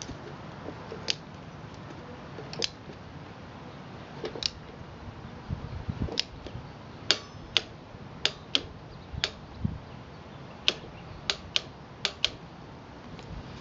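Sharp metallic clicks from a click-type torque wrench set to 22 ft-lb, working a spark plug in the 3.0 V6's cylinder head. About a dozen single clicks come at irregular spacing and bunch closer together in the second half.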